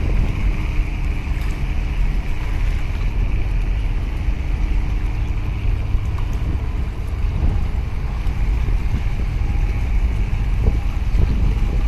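Steady low rumble of a boat's engine, with wind buffeting the microphone and a hiss of water.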